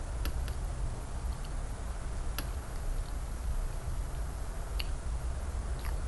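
Fingers handling a raw salmon sashimi slab and shredded white radish on a ceramic plate, giving a few short, sharp, scattered clicks over a steady low hum.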